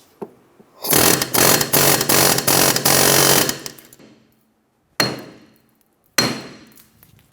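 Pneumatic air hammer rattling rapidly against the rear knuckle and wheel hub for about two and a half seconds to drive the hub and bearing out, followed by two single sharp metal impacts that each ring out.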